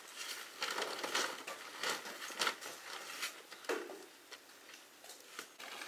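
Fresh red chili peppers tumbling and pattering out of a woven bamboo basket onto a bamboo mat, with an uneven run of light rustles and crackles as the pile shifts.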